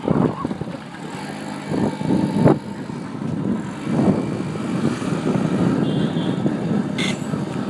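Moped engine running steadily while riding along, with wind noise over the microphone.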